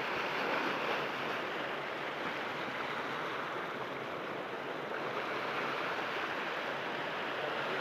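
Ocean surf breaking and washing over rocks: a steady rush of water with no distinct strokes.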